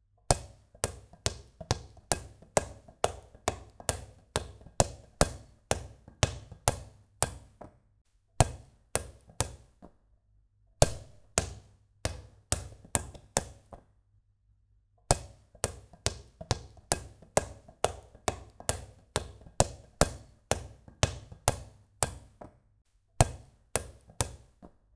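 A small ball being dribbled: sharp, evenly spaced bounces at about two and a half a second, in several runs broken by brief pauses.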